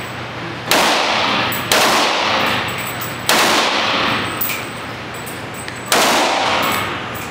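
AK-47 rifle firing four single shots, spaced unevenly over a few seconds. Each shot is followed by a long echo off the indoor range.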